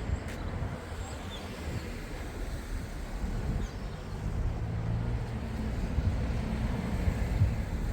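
Low engine rumble of a passing motor vehicle, growing louder about halfway through and holding to near the end.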